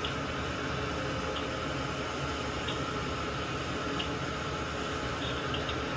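A steady hiss with a faint constant hum, broken by a few tiny crackles of flux sizzling under a soldering iron as old solder is melted off a capacitor leg on a circuit board.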